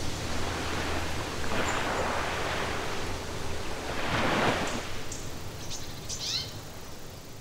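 Ocean surf washing in two swells, with a few high bird chirps near the end as the sound fades down.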